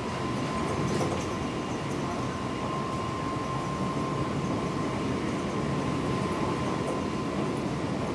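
Seibu 6000 series electric commuter train heard from inside a motor car while running: a steady rumble of wheels and running gear, with a thin steady high tone that fades out near the end.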